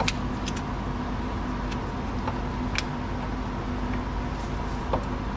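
A few scattered, sharp metallic clicks from a socket wrench and extension being worked on a stuck bolt at a car's front wheel hub, over a steady background hum.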